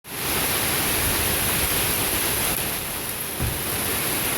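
Steady hiss of a heavy hailstorm with rain pouring down, with a brief low bump about three and a half seconds in.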